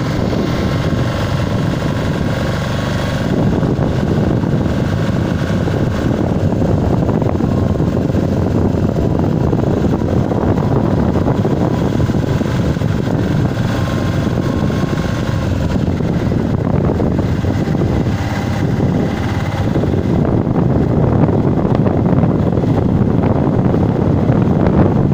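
Steady rush of wind buffeting the microphone together with road and running noise from an open vehicle moving along a paved road.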